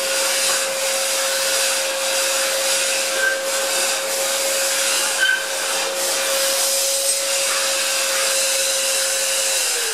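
Festool CT 36 dust extractor running with a steady whine, vacuuming up plaster dust through its hose. Near the end the motor is switched off and its whine starts to fall in pitch as it winds down.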